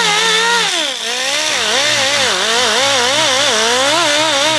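Small electric grinder spinning up and running against the rubber of an inner tube to scuff it for a patch, its pitch dipping and recovering as it is pressed on and eased off.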